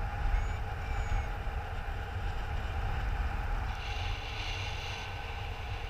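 Wind noise from a paraglider in flight, buffeting a GoPro's microphone as a steady low rumble.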